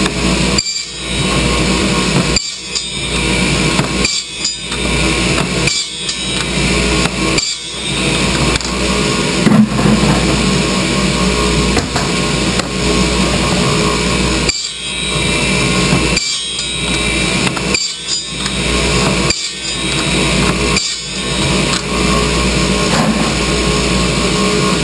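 Ridgid radial arm saw running, its blade chopping white plastic pipe into short lengths in a quick series of cuts, about one every couple of seconds, with a pause midway while the pipe is fed along.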